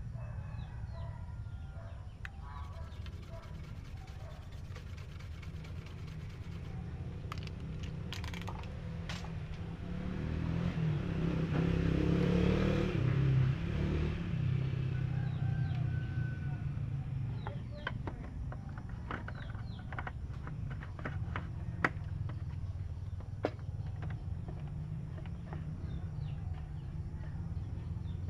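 A rooster crows in the background near the middle, over a steady low hum. Light clicks and rattles come from a CRT TV's chassis board and wires being handled in the second half.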